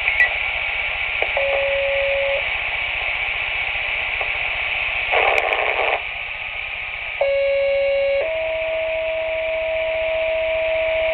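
Fire-dispatch two-tone sequential page coming through a Minitor II pager's speaker over the hiss of an open radio channel. A single one-second tone sounds first, then a brief burst of static. After that a one-second tone runs straight into a slightly higher tone held about three seconds, and the transmission cuts off sharply at the end.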